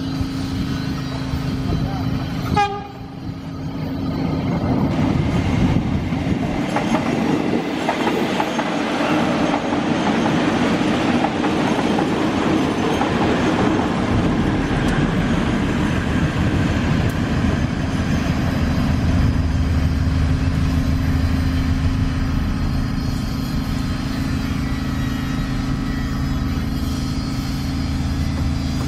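Electric commuter train (KRL) running past on the track: a steady tone at first that breaks off about two and a half seconds in, then the heavy rumble of the train's wheels on the rails, building to its loudest about ten seconds in and holding on.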